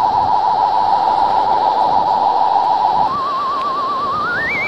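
Warbling electronic flying-saucer sound effect, a theremin-like tone. It wavers fast, switches to a slower, slightly higher warble about three seconds in, then slides up to a higher pitch near the end.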